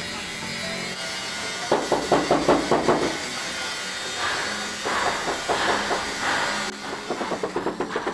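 Mallet tapping a large granite wall tile to bed it into thick cement paste: quick runs of taps about two seconds in, again around the middle, and a faster run near the end.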